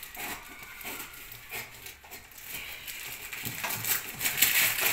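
Scissors snipping through plastic gift wrapping, with packaging crinkling and rustling in irregular bursts that get louder over the last second or so.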